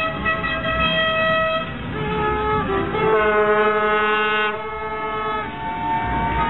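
Car horns sounding in long held notes, the pitch changing every second or two, with several horns sounding together about three seconds in.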